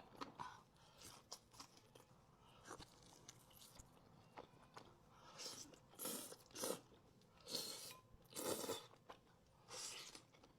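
Close-miked eating: soft crunching bites and chewing of fried chicken wings, with several sharper crunches in the second half.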